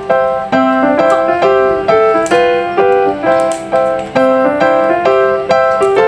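Background music: a simple keyboard melody with notes struck about twice a second, each fading before the next.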